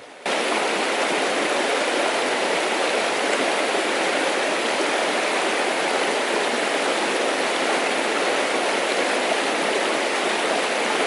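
Small forest stream running over a low cascade: a steady rush of water that comes in suddenly just after the start and cuts off abruptly at the end.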